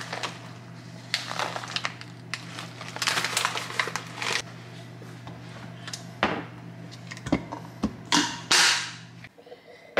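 Kitchen handling noises: a run of sharp clicks and rustles, like items and packaging being moved about. They play over a steady low hum that cuts off about nine seconds in.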